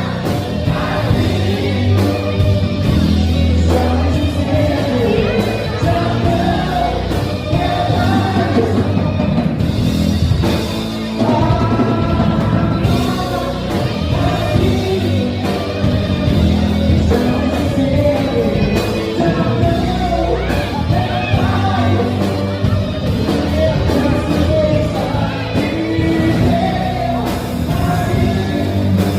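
Rock band playing a Brazilian rock song with a singer, loud and steady, with a strong low end.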